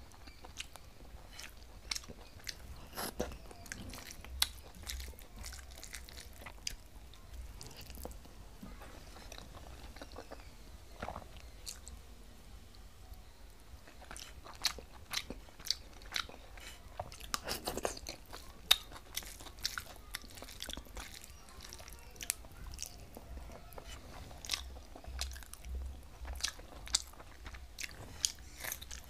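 Close mouth sounds of a person eating rice and fish curry by hand: chewing with many short wet clicks and smacks, and a few small crunches, over a faint low hum.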